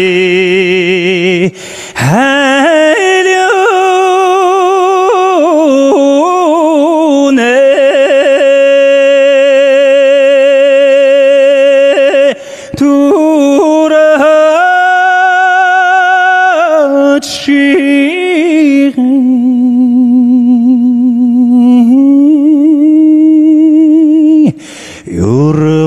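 A man's unaccompanied voice singing a Mongolian folk song. He holds long notes with wavering ornaments and pauses briefly for breath three times.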